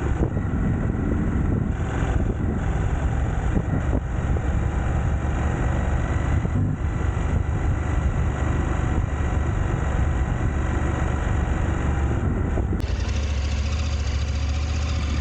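Motorcycle engine running steadily, with an even low-pitched hum and no change in speed.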